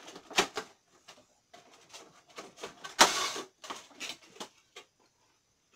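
Clear plastic packaging and a cardboard Funko Pop box being handled: scattered crackles and taps, with one loud rustle of the plastic about three seconds in.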